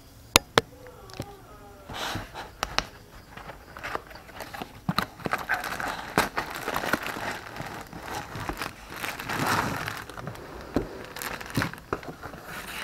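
A cardboard tripod box being opened by hand and the tripod slid out in its plastic bag: rustling cardboard and crinkling plastic with many small clicks and taps. Two sharp clicks come first, and the rustling starts about two seconds in.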